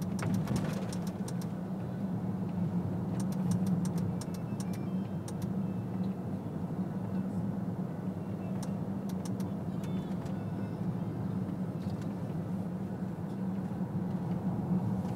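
Car driving on a road, heard from inside the cabin: steady engine and tyre hum, with scattered faint clicks.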